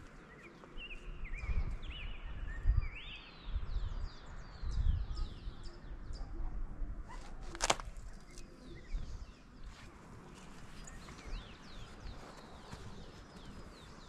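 Small birds chirping in short rising and falling notes, busiest in the first half, over the low thuds of footsteps on a rocky dirt trail. One sharp click comes about eight seconds in.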